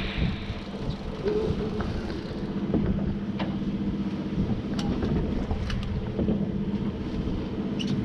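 Fishing boat's engine running with a steady hum, with wind on the microphone and a few light clicks.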